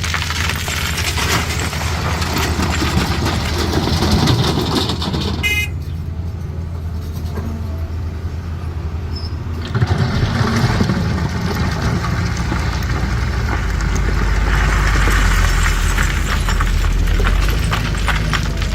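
CAT 320D excavator's diesel engine running under load, with stone clattering and scraping as it loads. A short horn toot about five and a half seconds in, then a quieter spell before the engine and stone noise pick up again sharply near ten seconds, the engine working harder from about fourteen seconds.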